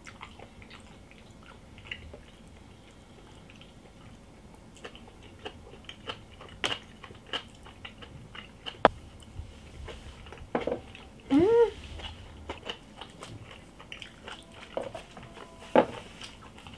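Eating sounds at the table: chewing and biting, with scattered sharp clicks of chopsticks and dishes. A short hummed voice comes about eleven seconds in.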